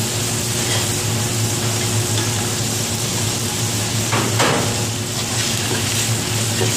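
Diced vegetables and ham sizzling in a large aluminium pot while a metal spatula stirs and scrapes through them, with one sharper scrape about four seconds in. A steady low hum runs underneath.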